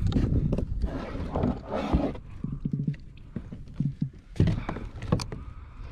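Gear knocking and scraping against a plastic kayak hull as a fish measuring board is pulled out and passed across, with two sharper knocks near the end.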